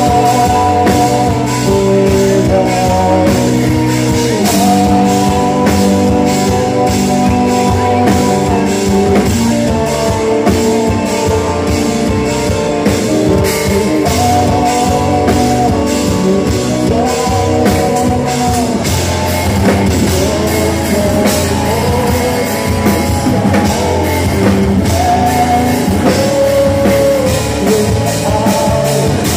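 Progressive metal band playing live: a singer's long held vocal lines over electric guitars, bass and drums.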